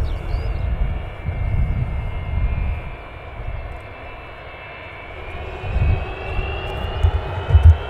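Distant Antonov An-225's six Progress D-18T turbofan engines running: a thin jet whine that grows louder and rises slightly in pitch over the second half, over a low rumble that comes and goes.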